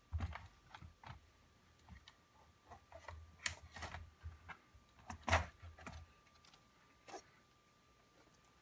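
Irregular clicks and taps of laptop parts and tools being handled during disassembly, some with low bumps, stopping about seven seconds in.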